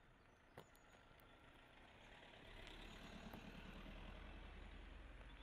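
A motor vehicle's engine running, a steady low hum that grows louder from about halfway in. There is a single short click near the start.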